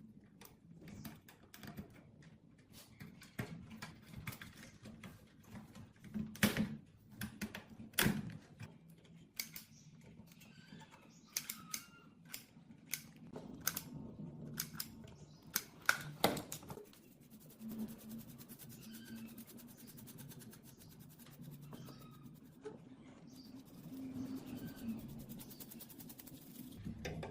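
Scattered light clicks and taps, irregular, with a few louder knocks in the first third and around the middle, over a faint steady low hum.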